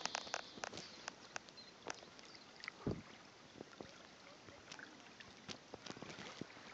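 Shallow stream of water trickling over sand and stones: a faint steady hiss of running water with frequent small irregular plinks and clicks. A single dull thump about three seconds in.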